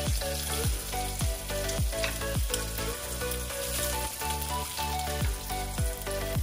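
Background music with a deep kick drum that drops in pitch, beating a little under twice a second, under a held melody. Beneath it runs a steady sizzle of food frying.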